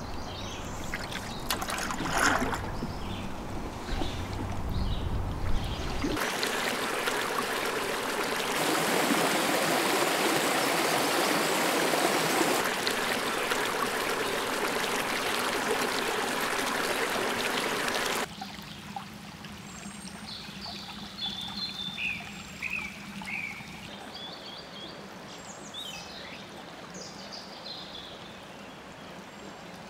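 Small woodland brook rushing over a cascade of logs and rocks: a steady rush of water that starts about six seconds in, after a low rumble, and cuts off suddenly about two-thirds of the way through. What follows is much quieter, with a few short high chirps.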